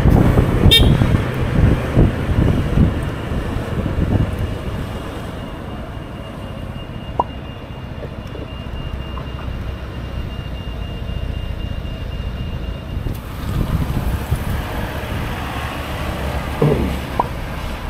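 Honda Forza 125 scooter's single-cylinder engine with wind on the helmet microphone, slowing down and then sitting at a red light, where the sound drops to a quieter steady low hum. It grows louder again near the end.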